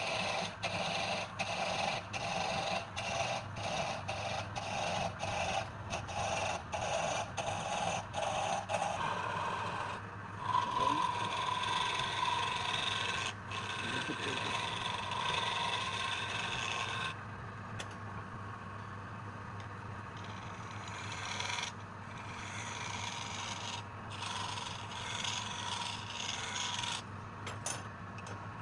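A tool or abrasive rubbing and scraping against wood spinning on a wood lathe, over the lathe's steady hum. It goes in regular back-and-forth strokes, about two to three a second, for the first third. Then it turns into a steadier rubbing with a faint whine, which grows quieter in the last third.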